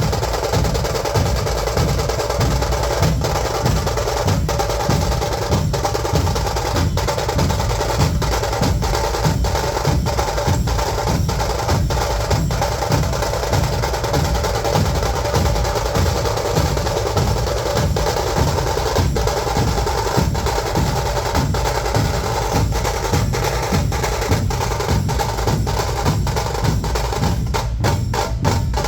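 Dhol-tasha ensemble playing: massed dhol barrel drums beat a steady low rhythm under the continuous sharp rattle of tasha drums. Near the end the strokes come faster and more sharply separated.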